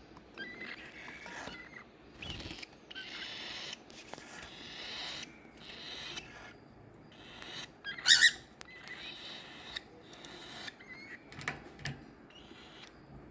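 Cockatiel chicks calling: a string of raspy, buzzing begging calls, each about half a second to a second long, with short chirps between them and one louder, sharper call past the middle.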